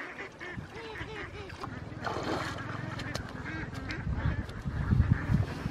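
Waterfowl honking repeatedly in the background while a person wades through shallow pond water, the water sloshing around him. Heavier low thumps come near the end as he climbs out onto the muddy bank.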